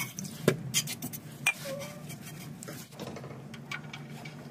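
A few scattered light metallic clicks and taps as a new oxygen sensor is handled and started by hand into its threaded exhaust bung.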